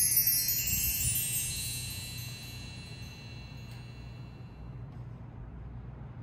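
Bright cascade of high chime notes ringing out together and fading away over about three seconds, leaving a faint steady low hum.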